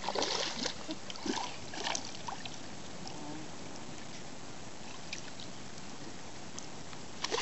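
Light splashing in shallow lake water during the first two seconds as a dog wades and a person steps at the water's edge, then a steady even hiss of water and outdoor background.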